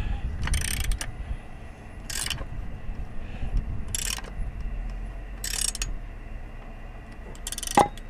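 Ratchet wrench clicking in five short bursts, about a second and a half apart, as it tightens the propeller nut on an outboard motor's prop shaft.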